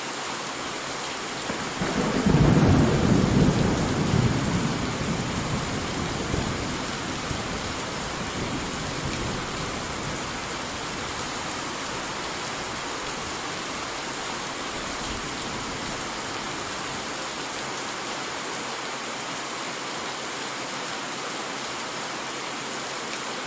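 Steady heavy rain with a roll of thunder that begins about two seconds in, rumbles loudest for a couple of seconds and fades over the next few; another thunder rumble starts right at the end.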